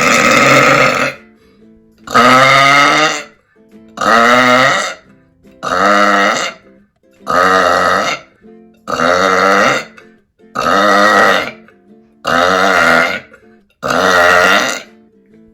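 A woman burping loudly, nine long burps in a steady series about one every second and a half to two seconds, each a wavering pitched belch lasting around a second.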